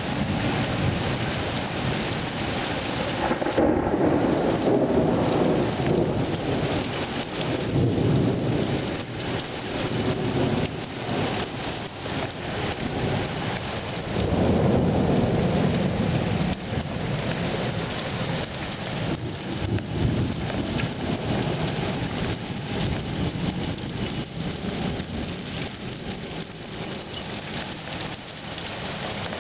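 Heavy rain pouring steadily, with thunder rumbling in long, rolling swells: one builds about four seconds in and another about fourteen seconds in.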